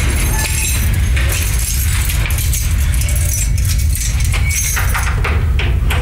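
Keys jangling and clicking as a key is worked in a door lock, over a steady low drone.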